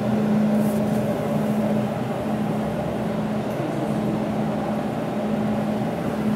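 Steady low mechanical hum of a running jewelry laser welding machine, its water pump and cooling running.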